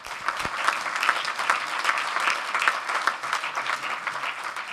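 An audience clapping steadily: the many quick claps of a large seated crowd in a conference hall.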